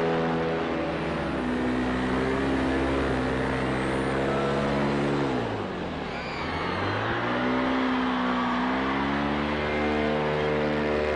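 Paramotor engine and propeller running in flight; about halfway through the pitch falls as the throttle is eased off, then rises again as power comes back on.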